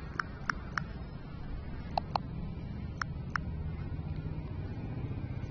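Smartphone on-screen keyboard key-press clicks as a username is typed: about seven short, crisp ticks in quick runs of two or three, over a low steady background hum.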